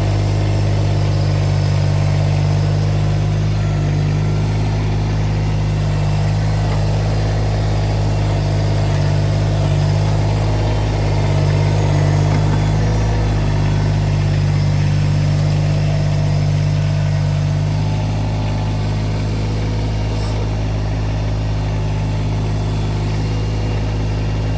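Engine of the MT125, a small machine scraping and levelling ground, running steadily at a nearly constant speed with only slight swells in load.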